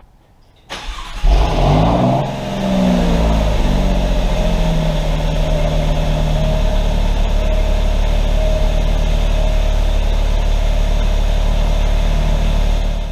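Alfa Romeo Giulia Quadrifoglio's twin-turbo V6 cold start: a brief crank, then it fires with a loud flare of revs that falls away within about a second and settles into a steady fast idle. The sound cuts off just before the end.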